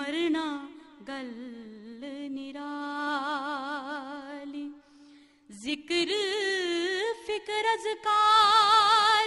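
A woman's solo voice singing a Punjabi Sufi kalam, holding long notes with a wavering vibrato and quick ornamental turns. There is a short break about five seconds in, and the loudest held note comes near the end.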